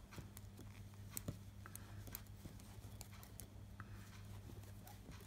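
Faint, irregular clicks of knitting needles working stitches, over a steady low hum.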